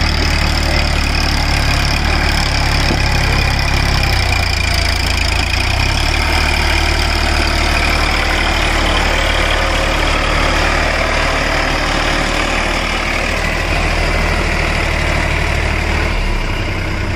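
Massey Ferguson 7250 DI tractor's three-cylinder diesel engine running steadily as the tractor drives through mud, its note shifting briefly about four to six seconds in.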